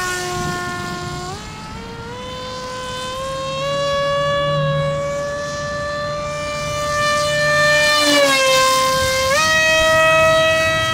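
Battery-electric motor and propeller of a foamboard RC plane in flight, a steady whine that steps up in pitch with throttle in the first couple of seconds, dips around eight seconds in, then steps up again near the end.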